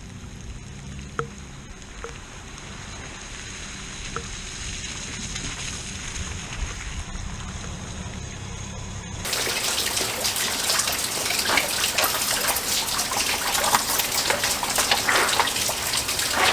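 A low steady rumble, then after a sudden cut about nine seconds in, a loud steady rush of heavy rain splashing and pattering.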